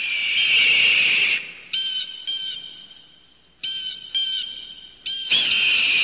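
High whistle-like tones in repeating phrases. A long held note is followed by groups of short notes, then another long note begins about five seconds in. Each note opens with a quick upward slide.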